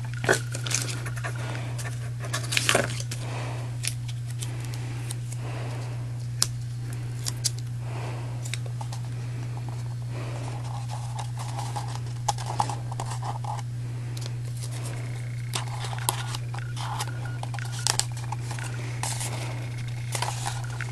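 Paper and twine being handled by hand: scattered light rustles, crinkles and small taps, over a steady low hum.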